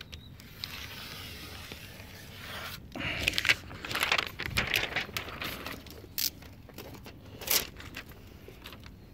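Window tint film scraping and crinkling as a utility knife trims it along the bottom edge of the rear glass and the cut-off scrap is handled. There are irregular crackles and rustles, busiest from about three seconds in, with a few sharp crinkles near the end.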